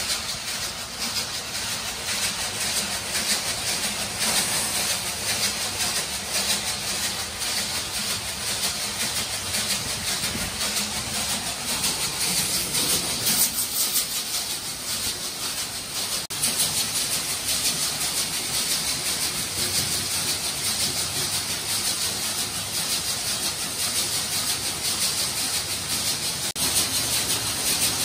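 Steady, hissing noise of factory machinery running, with an abrupt change about halfway through.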